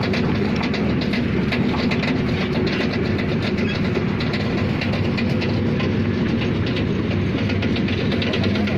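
Heavy diesel engine of an excavator running steadily, with fast, irregular metallic clicking and clanking over it.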